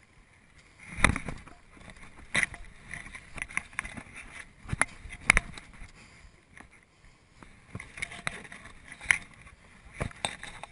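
Irregular knocks, thumps and scuffs from a body-worn GoPro camera and the wearer's movements as she clambers over obstacle walls and onto the grass. The loudest knocks come a little after one second in, near two and a half seconds and around five seconds.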